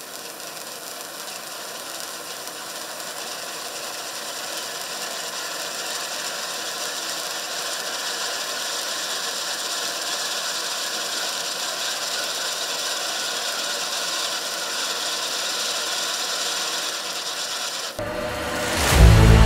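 Z121 'Cánh hoa xoay' (spinning petal) fountain firework spraying sparks, a steady crackling hiss that grows gradually louder. Near the end it cuts off abruptly and a whoosh leads into music.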